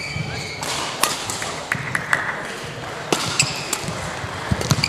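Badminton rally: rackets striking the shuttlecock with sharp cracks, the clearest about a second in and around three seconds in, amid players' shoes squeaking on the court.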